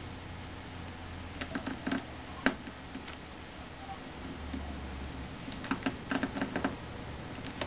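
Scattered light clicks and taps, a cluster about a second and a half in, one sharper tick at two and a half seconds, and another cluster near six seconds, over a low steady room hum.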